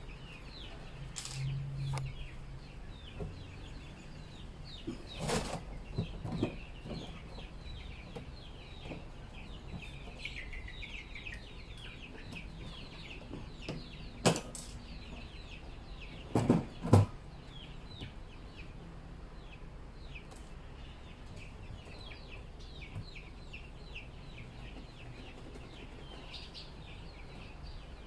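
Chickens chirping and clucking steadily in the background, with a few sharp knocks and clacks from the hinged door cut into a plastic feed-mixer drum being handled; the loudest is a double knock about 17 seconds in.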